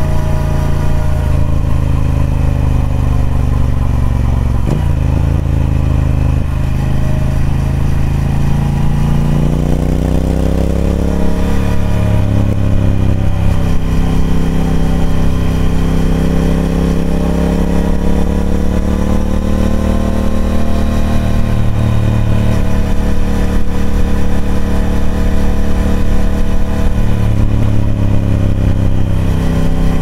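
Triumph Speed Twin 1200's parallel-twin engine through its stock exhaust, heard from on the moving bike. The revs sink slowly for the first nine seconds or so, climb again at about ten seconds, and rise and fall a few more times with the throttle.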